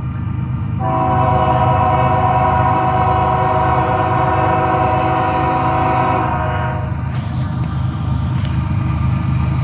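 Diesel locomotive air horn sounding one long chord of several tones for about six seconds, starting about a second in. Under it runs the steady low rumble of the approaching train.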